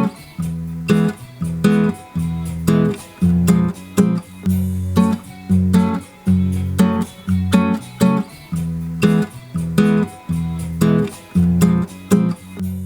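Strummed acoustic guitar recording playing in a steady rhythmic chord pattern, run through a stereo 1176-style FET hardware compressor.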